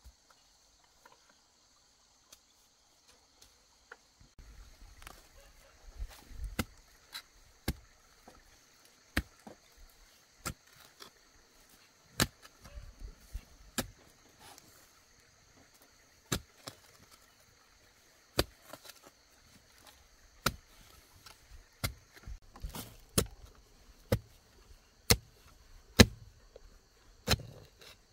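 Sharp strikes of a tool on wood, starting a few seconds in and coming about every second or two. Under them runs a steady high chirring of insects.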